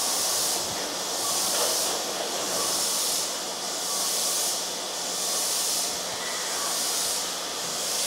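Steady high hiss from a Keisei 3700 series electric train standing at the platform with its doors shut, swelling and fading about every second and a quarter over a faint low hum.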